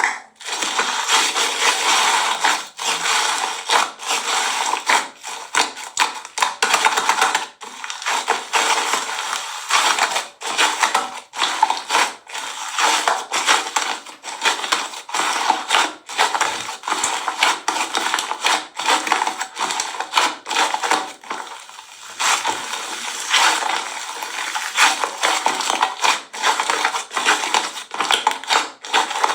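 Slime squeezed and worked by hand, giving a dense, irregular run of crackling pops and squelches.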